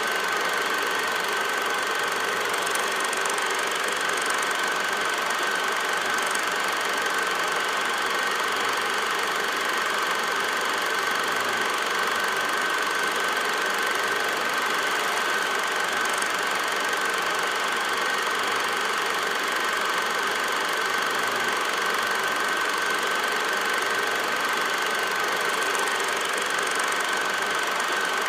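Steady mechanical whirring and hiss with a constant high whine, unchanging in level throughout; no sound of the game itself.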